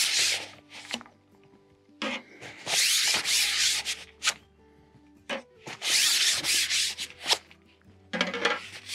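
Carbon fishing pole sections being pulled apart one after another. There are four long rasping slides of carbon over carbon at the joints, with light knocks between them, and the sections come off freely without sticking.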